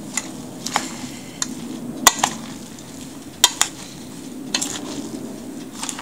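Metal spoon stirring a wet mixture of ground cod, onion, grated carrot and parsley in a stainless steel bowl, with irregular sharp clinks of the spoon against the bowl, two of them louder, about two and three and a half seconds in. A steady low hum runs underneath.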